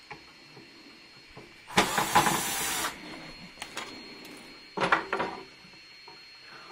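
Cordless drill/driver driving a screw into a brass hinge on a wooden board: one run of about a second, then a shorter burst near the end, with a few small clicks between.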